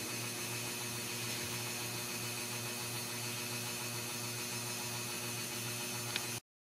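Steady whirring hiss with a low hum, with a single click about six seconds in, after which the sound cuts off abruptly.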